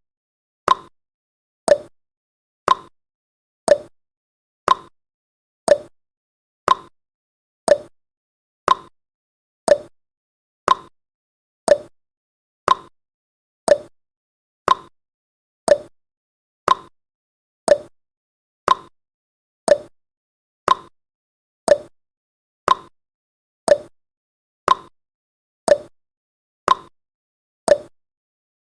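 Countdown timer sound effect: a short tick once every second, each a quick sharp click that dies away at once, at a steady even pace.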